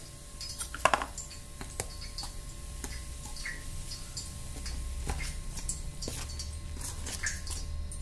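A metal slotted spoon clinking and scraping against a stainless-steel bowl while stirring hot oil into flour: a run of irregular light clinks, the loudest about a second in.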